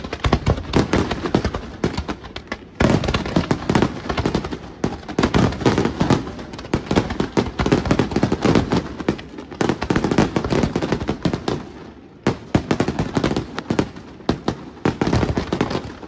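Professional fireworks display: dense, rapid volleys of bangs and crackling from aerial shells and low-level comet and fountain barrages fired in quick succession, with brief lulls about three and twelve seconds in.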